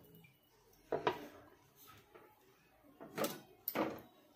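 Wooden spatula stirring a thin gravy in a steel kadhai, with three short scrapes against the pan: one about a second in and two close together near the end.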